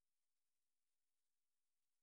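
Near silence: the soundtrack is empty apart from a very faint even hiss.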